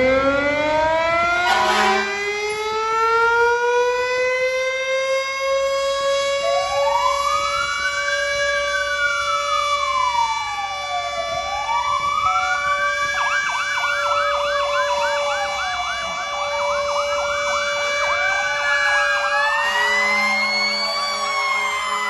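Fire truck sirens as the engines pull out: one siren winds up over several seconds to a steady held note, and from about six seconds in a second siren joins, sweeping slowly up and down with stretches of fast yelping. There is a brief blast about two seconds in and a low steady horn-like tone near the end.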